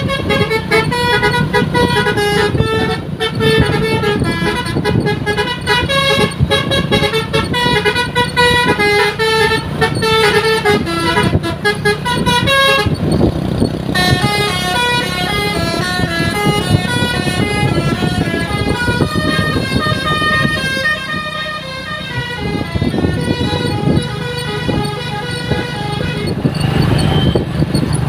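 ALS bus's telolet air horn playing a tune in quick stepped notes over the running engine, with a short break about thirteen seconds in before the tune carries on.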